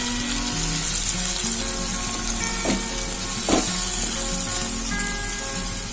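Oily masala gravy with stuffed brinjals sizzling steadily in a pan while a spatula stirs it.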